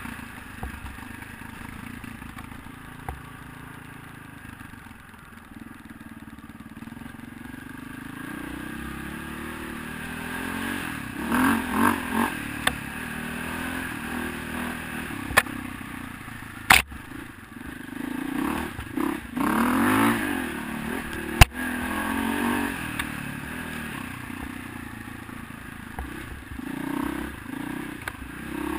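Single-cylinder four-stroke dirt bike engine running at speed on a trail, revving up in surges twice, a little before the middle and again past two-thirds of the way. The bike clatters over rough ground, with two sharp knocks in the second half.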